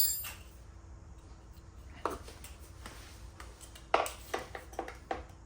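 Light metallic clinks and taps of hand tools on steel parts: one sharp clink about two seconds in, then a cluster of quicker taps from about four to five seconds in.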